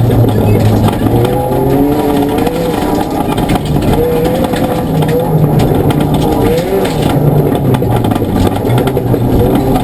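Ford Fiesta ST rally car's engine working hard at speed, heard from inside the cabin, its revs rising and falling through gear changes. There is steady rough road noise from the tyres on the gravel.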